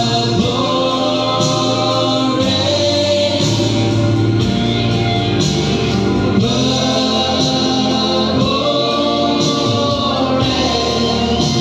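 A male lead singer and a backing choir singing together live over loud amplified backing music, holding long notes.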